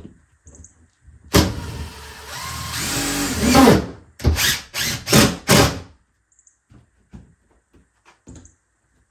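Power drill driving a screw into a cabinet: one run of about two and a half seconds in which the motor's pitch drops and picks up again as the screw bites, then four short trigger pulses that seat it.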